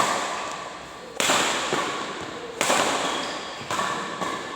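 Sharp hits traded back and forth in a rally, four of them about a second and a quarter apart, each ringing out in a large echoing hall.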